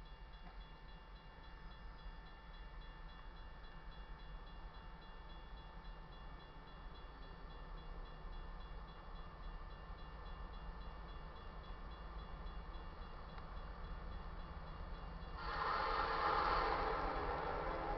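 Steady ringing and a low rumble from an approaching freight train led by an EMD SD70ACe locomotive, slowly growing louder. About fifteen seconds in, the locomotive's horn starts suddenly and much louder, holding on to the end.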